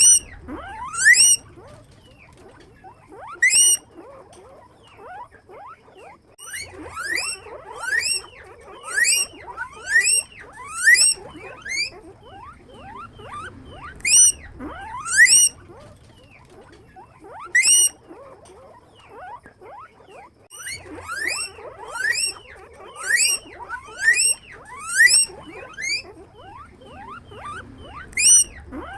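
Guinea pigs wheeking: repeated loud rising squeals in runs of several calls, about one a second, with fainter overlapping squeaks from other animals between them.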